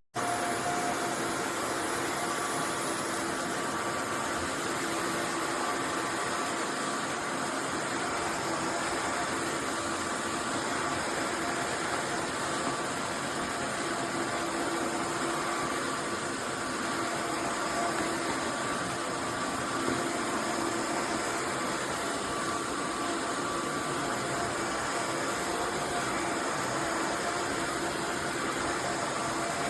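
Roborock F25 RT wet-dry vacuum running its deep self-cleaning cycle, the roller spinning in the dock. A steady, even whir with a faint hum runs throughout.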